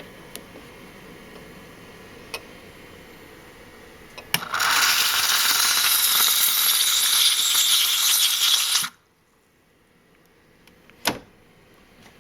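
Breville Oracle Touch espresso machine's steam wand releasing steam in a loud, even hiss for about four seconds, starting and cutting off abruptly. Light clicks come before it and a single sharp click after.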